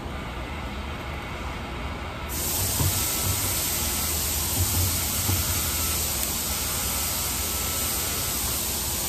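A loud, even hiss comes on suddenly about two seconds in and cuts off sharply at the end, over a low steady hum and a few soft knocks.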